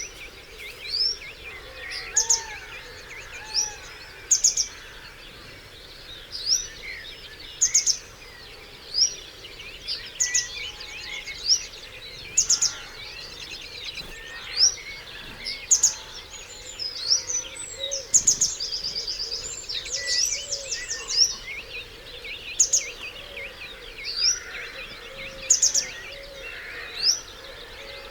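Dawn chorus of many songbirds singing over one another. One nearby bird repeats a loud, short, sharp call about once a second, and a rapid trill runs for a few seconds past the middle.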